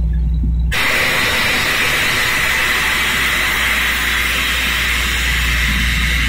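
Borewell drilling rig: a loud, steady hiss of rushing compressed air starts abruptly under a second in and cuts off near the end, with the rig's low engine drone underneath.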